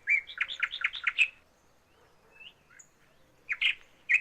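Bird chirping in quick runs: a rapid series of high chirps in the first second and a half, a short lull, then another cluster of chirps near the end.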